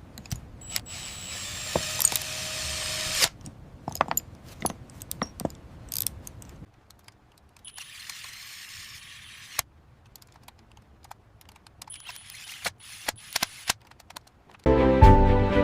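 Small tools clicking and tapping on a camera's parts, with three short stretches of high whirring like a small power drill. Music comes in loudly near the end.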